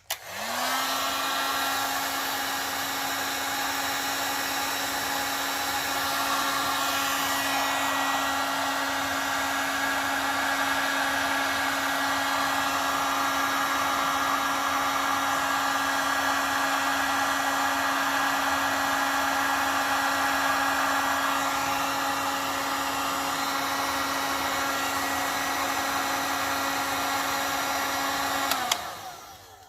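A small electric blower motor running steadily with rushing air for nearly half a minute. It spins up at the start and switches off suddenly near the end.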